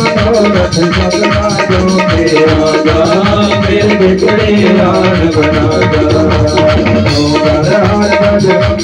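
Live Hindu devotional bhajan music: an electronic keyboard melody over tabla, kept in a steady beat by a group clapping their hands.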